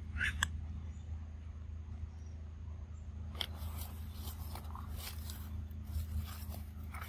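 Macaque biting and chewing a piece of ripe mango: scattered short eating sounds over a low steady rumble, with a brief high sound about a quarter second in.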